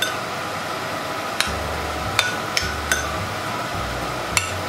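Metal spoon clinking against a ceramic bowl as an avocado salsa is stirred: about six sharp, irregular clinks over a steady background hiss.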